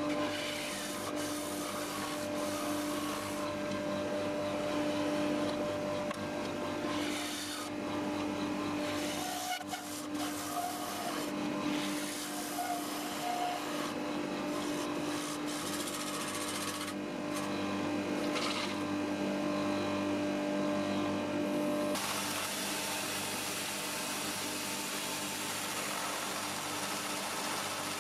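Wood lathe running with a steady hum while a bowl gouge cuts the inside of a spinning Leylandii bowl, a rough scraping of shavings coming off the wood. About three-quarters of the way through this changes suddenly to a Ryobi cordless drill spinning a sanding disc against the inside of the turning bowl, an even, hissing sound.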